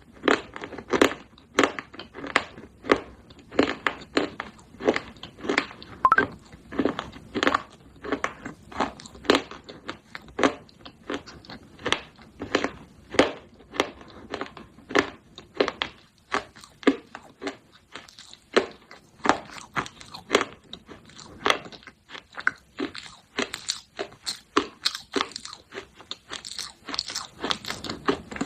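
Crunching and chewing of baked clay pot pieces: a steady run of sharp, gritty crunches, about two a second.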